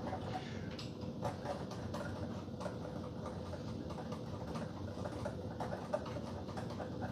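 Irregular light clicking and tapping of kitchen utensils and dishes being handled, over a faint steady hum.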